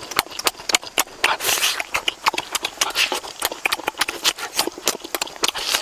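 Close-miked eating noises: wet mouth smacking and chewing, a rapid irregular run of sharp clicks, with a few short noisy sucking breaths.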